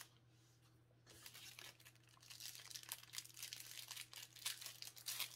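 Foil Magic: The Gathering cards being handled and laid out on a playmat: faint, irregular rustling and crinkling of card stock, starting about a second in.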